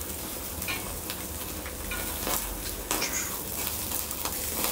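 Skewers sizzling steadily on a grill, with fat dripping into the heat, and a few short clicks over the sizzle.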